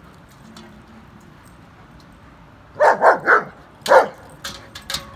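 German shepherd barking: three quick barks about three seconds in, then a single bark about a second later, followed by a few faint clicks.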